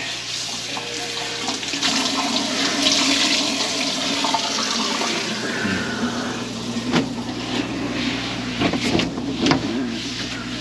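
Tap water running steadily into a kitchen sink, with a few sharp knocks in the second half.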